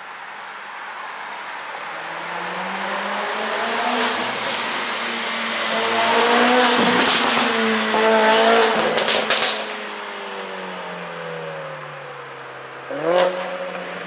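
Mercedes-AMG CLA 45 S's turbocharged 2.0-litre four-cylinder accelerating past, its note rising and stepping through gear changes, then a quick run of sharp exhaust pops and crackles as it goes by, from an ECU tune set for pops. A short rising rev comes near the end.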